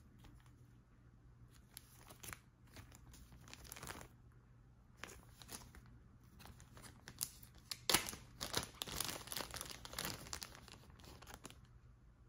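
Clear plastic zip bag crinkling as it is handled and opened: irregular crackles, busiest and loudest about two-thirds of the way through.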